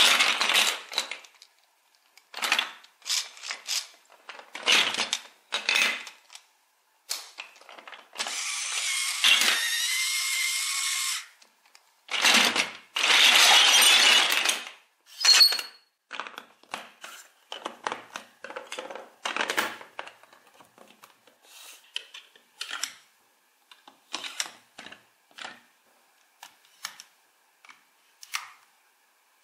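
Large plastic toy building bricks clattering and knocking together as they are rummaged through, with two longer rattling stretches as the pile is swept across the table. After that come lighter, scattered clicks and taps as bricks and wheels are handled and pressed together.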